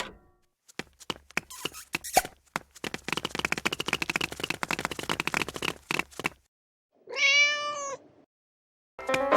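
A cat meows once, a single call of about a second, near the end. It comes after a few scattered clicks and about three seconds of rapid, dense rattling clicks.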